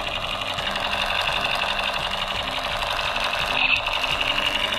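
Battery-powered toy submachine gun playing its electronic rapid-fire effect: a fast, unbroken rattle of repeated shots from its small speaker, holding steady throughout.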